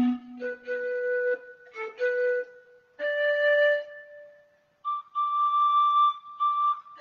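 Akai EWI 5000 electronic wind instrument on its pan pipes voice, playing a phrase of held, breathy, flute-like notes. The line climbs to a long high note near the end.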